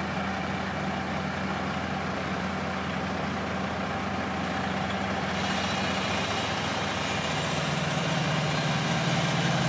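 Heavy diesel engines of asphalt paving machinery running steadily with a low drone. About halfway through a brighter, higher layer joins in and the sound grows slightly louder toward the end.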